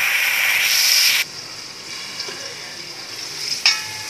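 Tomato-and-onion masala with yogurt sizzling in hot ghee in a steel pot, stirred with a wooden spoon. The loud sizzle drops suddenly about a second in to a quieter steady sizzle, with one sharp click near the end.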